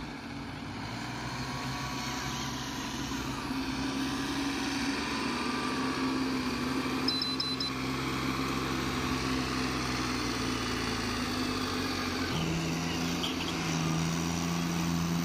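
Tractor diesel engines running steadily under a trolley load. About twelve seconds in, one engine's note steps up and holds at a higher speed. Three short high beeps sound about seven seconds in.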